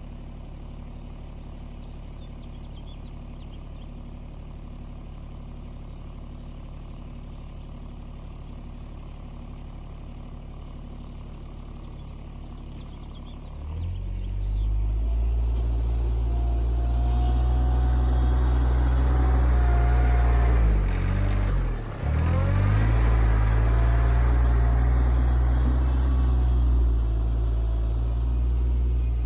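RK24 compact tractor's engine idling steadily, then throttled up about halfway through and running hard and loud. The pitch dips briefly a few seconds later, then the engine picks back up.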